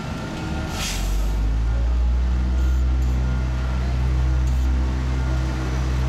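Asphalt paver's diesel engine running steadily, its low drone swelling about a second in, with a short hiss about a second in.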